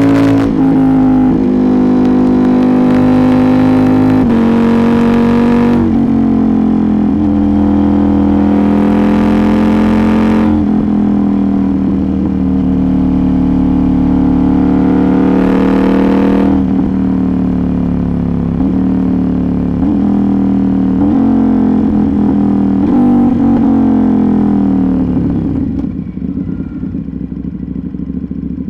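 KTM 790 Duke's parallel-twin engine through an Arrow GP2 exhaust with the catalytic converter removed, pulling through the gears under acceleration: the note climbs and then drops at each shift, several times. After about 25 s the engine note falls and eases off as the bike slows.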